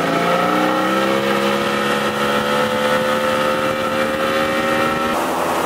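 Mercury-built Tracker outboard motor running at high speed, with the rush of the boat's wake; the engine's pitch climbs a little over the first couple of seconds and then holds steady. About five seconds in the engine tone breaks off abruptly, leaving only the rushing noise.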